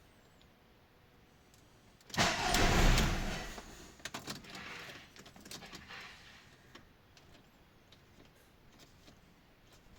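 Audi A6 starter motor running in one loud burst of about a second and a half, about two seconds in, then dying away, with scattered clicks afterwards.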